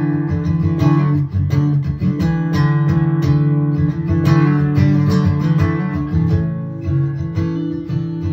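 Acoustic guitar strummed steadily, playing the chords of a song.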